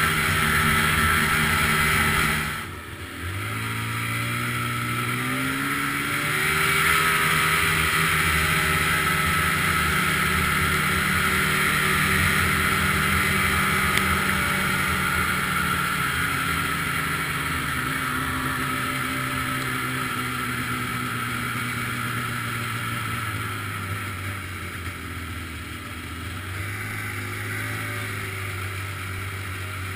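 Ski-Doo snowmobile engine under way: the throttle comes off about two and a half seconds in, then the engine revs up as the sled accelerates, holds a steady run, eases down gradually, and picks up again near the end.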